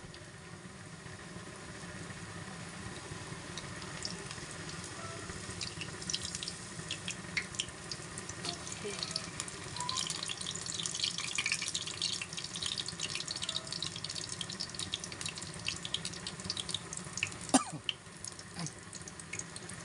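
Batter-coated kangkong and sweet potato leaves deep-frying in hot oil in a wok: a steady sizzle with dense crackling pops, busiest in the middle. Near the end comes one sharp click of metal tongs against the wok.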